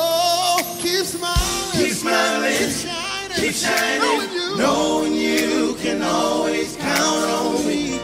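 Male vocal group singing live in close harmony, with sustained chords and vibrato runs rather than clear words; the voices carry the sound over a light band backing.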